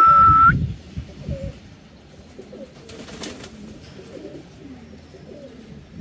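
Budapest highflyer pigeons cooing in low, wavering calls. A short, steady, high beep at the very start is the loudest sound, and there is a brief rustle about three seconds in.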